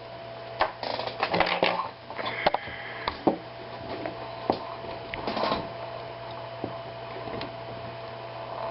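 Small irregular metallic clicks and taps of tweezers working the top pins and springs out of the pin chambers of a mortise lock cylinder, with a cluster of clicks about a second in and single ticks after. A low steady hum runs underneath.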